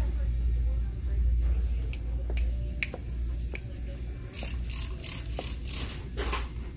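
Handling noise from a handheld camera carried along store shelves: a low steady rumble with a few light clicks, then a run of rustling about four to six seconds in.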